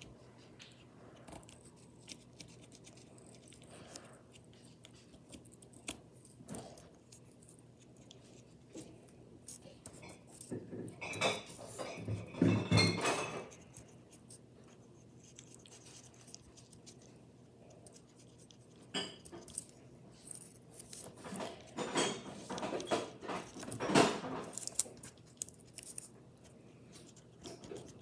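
Small craft tools and supplies being handled on a tabletop: clicks, taps, light clatter and scraping, in two busy spells about ten to fourteen seconds in and again about twenty-one to twenty-five seconds in.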